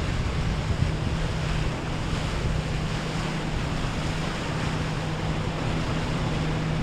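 A water taxi's Yamaha outboard motor running with a steady low hum as the boat passes, over the rushing hiss of its wake, with wind buffeting the microphone.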